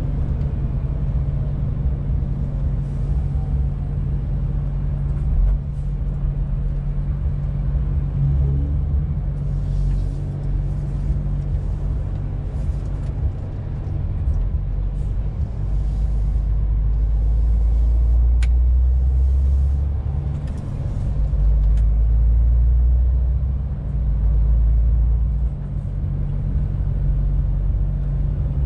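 Inside the cab of a 2021 MAN TGX 18.470 truck on the move: its straight-six diesel gives a steady low drone over tyre and road noise. The deep rumble swells louder a few times in the second half, and there is one short sharp click a little past the middle.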